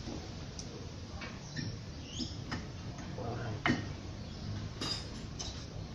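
Scattered small metal clicks and taps of front brake pads and caliper hardware being fitted by hand, with a sharper click a little past halfway, over a steady low hum.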